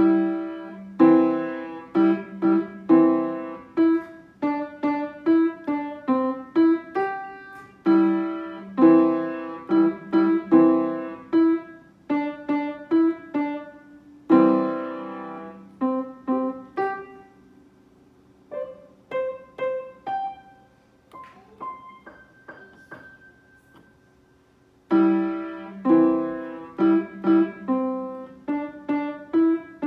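Upright acoustic piano played by a young beginner, a simple piece in struck chords that begins after a pause. Partway through it thins to softer, sparser single notes, then full chords return near the end.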